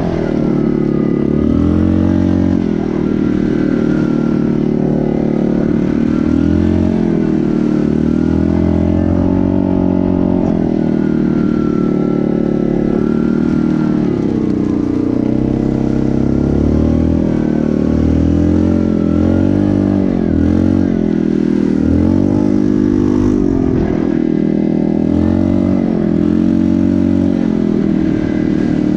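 Yamaha Grizzly ATV's single-cylinder engine running while riding, its pitch rising and falling over and over as the throttle comes on and off.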